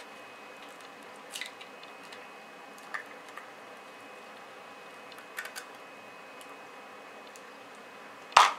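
Soft handling clicks of fried tofu pouches and an egg on a plastic cutting board, then one sharp crack near the end: an egg shell being knocked open.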